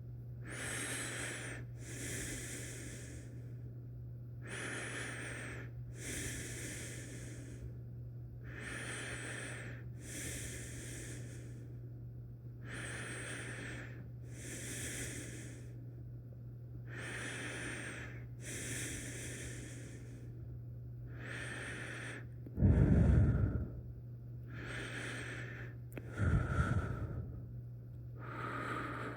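A person breathing slowly and deeply, in and out, about one breath every four seconds, with two louder, heavier breaths near the end.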